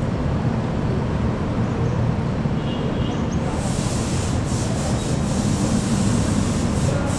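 Large diesel bus engine running with a steady low rumble, joined about halfway through by a long high hiss.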